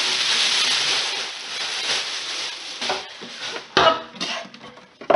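Rustling of packaging as a Thermomix TM5 kitchen machine is lifted out of its box, followed from about three seconds in by a few sharp knocks as the machine is handled and lowered toward a granite glider board.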